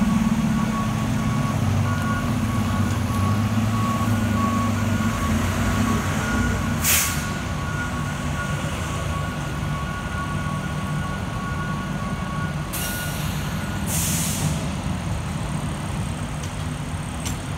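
A fire engine and a box ambulance back into their station bays, each truck's backup alarm beeping at a slightly different pitch, with both engines idling under it. The beeping stops about thirteen seconds in. Three short air-brake hisses come through, one about seven seconds in and two close together near thirteen and fourteen seconds.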